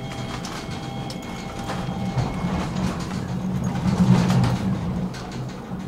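Tram running along its rails: a steady low rumble with a few thin whining tones that die away about two seconds in. The rumble swells louder around four seconds in.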